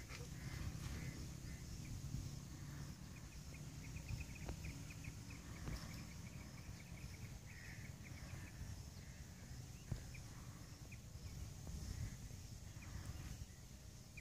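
Quiet outdoor ambience: birds chirping on and off in quick strings of short high notes over a steady low rumble, with one brief click about ten seconds in.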